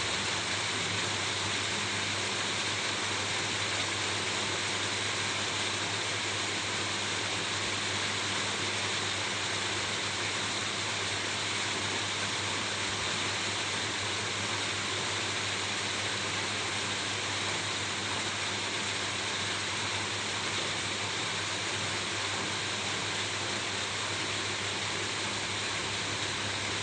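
Steady rain falling on a roof: an even, unbroken hiss with no single drops standing out.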